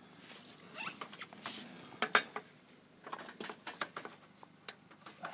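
Sharp plastic clicks and light clattering as solar panel cable connectors (MC-type) are handled and pushed together, with some scraping of cable and hands. The loudest is a quick pair of clicks about two seconds in.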